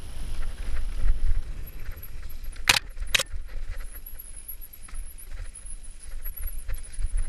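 Mountain bike rattling and clattering as it rolls fast down a dirt singletrack, over a low rumble, with two sharp knocks about half a second apart a little under three seconds in.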